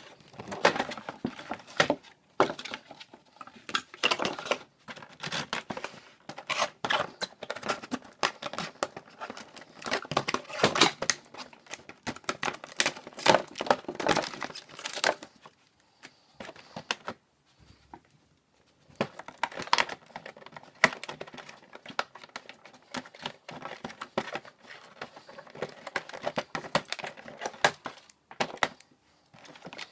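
Cardboard box and plastic packaging being handled and pulled apart: crinkling, tearing and small knocks, with a short quiet pause about halfway through.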